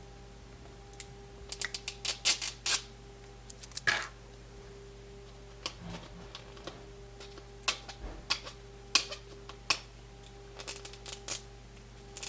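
Irregular sharp clicks and taps of small plastic toy pieces and packaging being handled, in scattered clusters over a faint steady hum.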